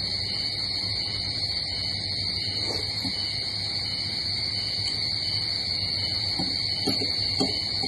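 A steady high-pitched drone with a low hum beneath it. A few faint short clicks and smacks from eating by hand and with a spoon come near the middle and again towards the end.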